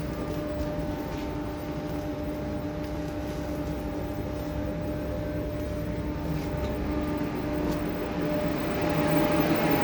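A steady machine hum with a few constant tones over a noisy bed and some faint clicks, swelling slightly near the end.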